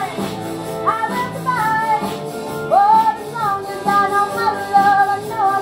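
A woman singing a 1970s disco song over a live band with drums, amplified through the hall's sound system; her held, gliding notes sit above the band's steady accompaniment.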